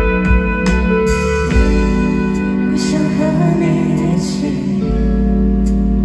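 A live band playing through a festival PA, heard from the crowd: electric guitars, keyboard, bass and drums with a singing voice. The bass drops out about one and a half seconds in and comes back near the end.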